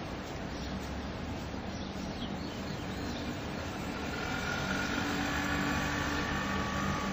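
A steady engine rumble. About four seconds in, a high whine joins it and the sound grows a little louder.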